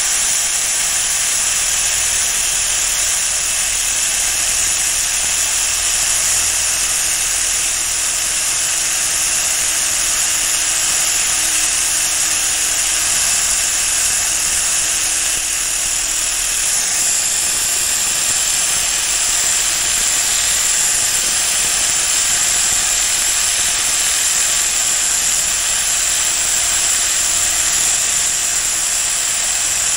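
A power sanding tool running steadily against the steel blade of Heinisch #12 tailor's shears, grinding pits and discoloration off the blade surface. It makes a continuous high hiss with a faint steady hum beneath it.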